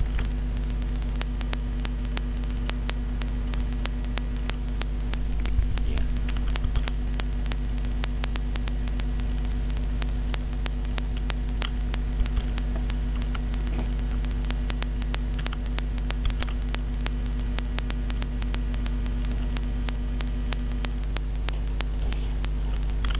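Steady electrical mains hum with a continuous fine crackle of static from the recording setup.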